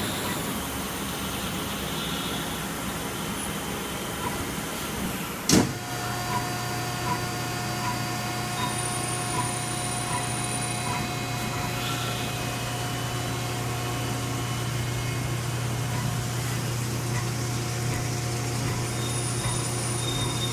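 Citizen A20 CNC Swiss-type lathe running with a steady mechanical hum. A sharp click comes about five and a half seconds in, after which a deeper hum grows stronger, and a faint, evenly spaced pipping follows for several seconds.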